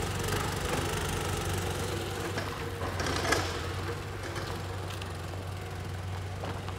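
Small scooter engine running steadily as the scooter, converted with two rear wheels, is ridden over rough dirt. A brief sharp clack about three seconds in.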